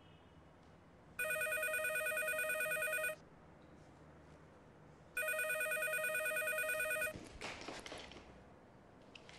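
Grey corded landline desk telephone ringing with an electronic warbling trill, two rings of about two seconds each. About seven seconds in the ringing stops and the handset clatters as it is picked up.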